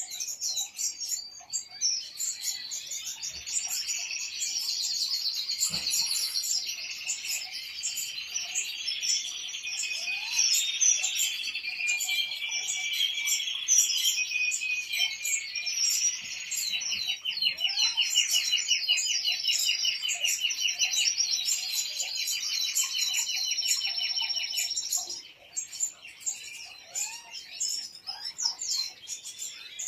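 Several European goldfinches singing together in a dense, continuous twittering chorus, with a rapid, even trill running for several seconds past the middle. The song thins to scattered chirps near the end.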